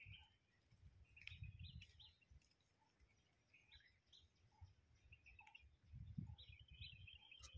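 Faint, scattered bird chirps over an irregular low rumble.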